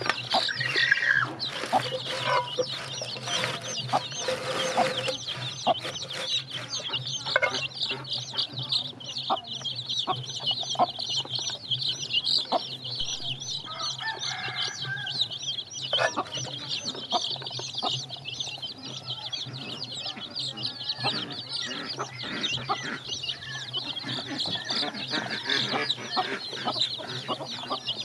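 A crowd of young chicks peeping nonstop, a dense chorus of short high-pitched cheeps, with scattered clicks and a faint steady low hum underneath.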